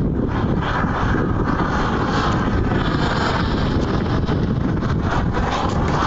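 Wind buffeting the phone's microphone in a steady rumble, over the running sound of a large radio-controlled Mi-24 Hind scale model helicopter flying overhead.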